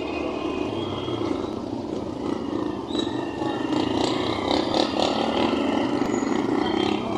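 Motorcycle engine running while riding, with wind and road noise and other traffic around.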